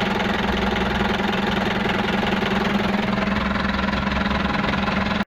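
Nissan TD27 2.7-litre four-cylinder diesel engine idling steadily.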